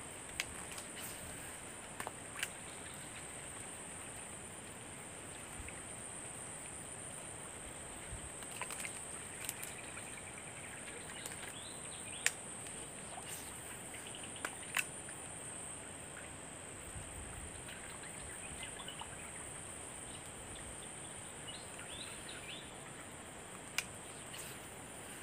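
Quiet plantation-stream ambience: a steady high-pitched insect drone, faint bird chirps, and a few sharp clicks from handling the fishing rod and spinning reel.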